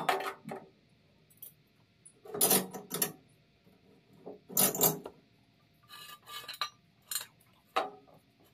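A series of short, irregular metallic clinks and scraping strokes from hand work on a steel VW Beetle chassis pan being scuffed for paint.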